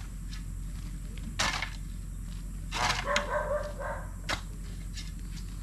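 Steel shovels scraping and chopping into loose soil, a handful of separate strokes, with a dog barking a few times.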